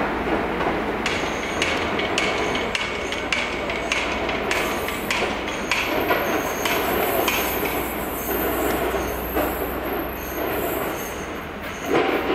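Class 197 diesel multiple unit running over station pointwork, with its engine rumbling low. Its wheels make a run of sharp clicks and knocks over the joints and thin squeals on the curves, and there is a louder burst of engine or wheel noise near the end.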